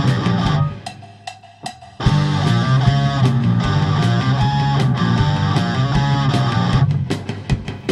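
Instrumental rock music from a three-piece band of electric guitar, bass and drums. The band stops short under a second in, leaving a few sparse notes, then comes back in at full volume about two seconds in, and drops away again briefly near the end.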